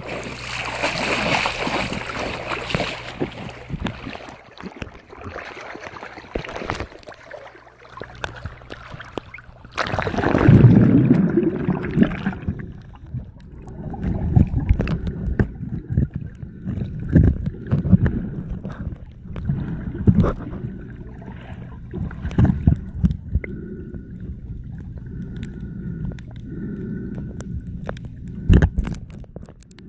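Water sloshing and splashing around a phone held at the surface, then a loud rush of water about ten seconds in as it goes under. After that comes the muffled, low rumbling and surging of water heard through the submerged phone.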